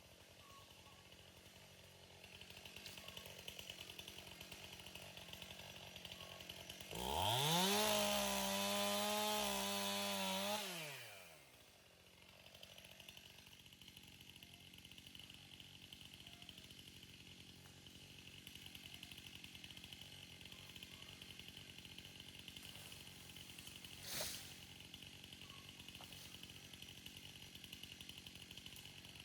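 Chainsaw revved to full throttle for about four seconds, its pitch rising fast and then falling back as the throttle is released. The rest is a much quieter steady sound, with one sharp knock near the end.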